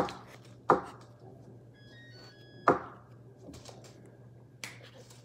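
Three sharp knocks on a hard surface, each ringing out briefly: one at the start, another under a second later, and a third about two seconds after that.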